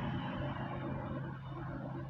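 Steady low mechanical hum, slowly fading.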